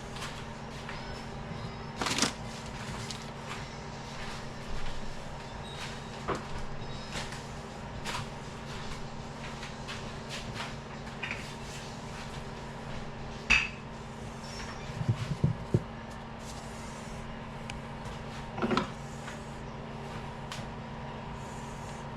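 Kitchen work sounds: scattered sharp knocks and clatters of utensils and containers being handled, with a short run of louder knocks about two thirds of the way through, over a steady low hum.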